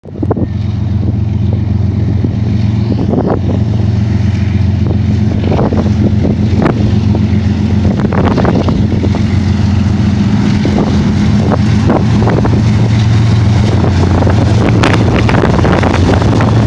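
A lash-up of BNSF GE diesel-electric freight locomotives (ES44AC leading, ES44DC and Dash-9s trailing) running under power as they approach and pass. Their deep, steady engine drone grows slightly louder as they come close, with a few brief crackles over it.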